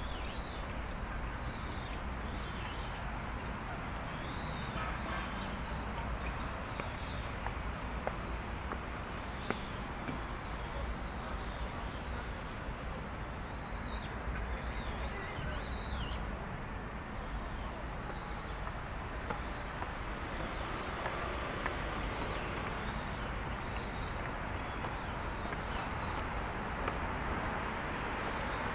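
A steady high-pitched insect chorus trilling without a break, over a low hum of distant city traffic, with scattered bird chirps mostly in the first half.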